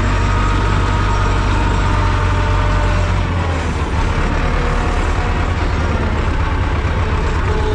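Ursus tractor's diesel engine running steadily while driving, heard from inside the cab as a loud low drone. About three seconds in, the engine note drops slightly.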